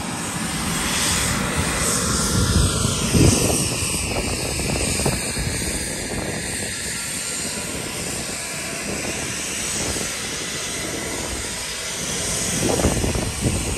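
Jet aircraft engine noise from a nearby plane: a loud, steady rush with a slow whoosh that falls in pitch, swelling about three seconds in and again near the end.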